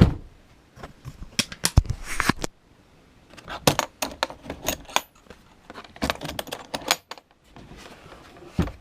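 Cardboard box and packaging being opened and handled: several bursts of clicks, crackles and rustles with short pauses between, and one last knock near the end.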